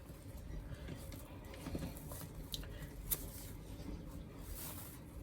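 Faint handling noise of packaging: soft rustling with a few light clicks, the sharpest about three seconds in, as the practice hand is taken out of its box.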